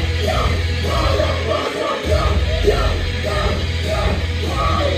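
Live band music with a heavy bass line and shouted vocals through the PA, heard from within the audience. The bass drops out for a moment about two seconds in, then comes back.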